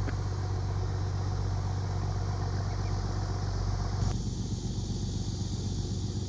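An engine running steadily with a low, even hum; a higher hiss over it drops away about four seconds in.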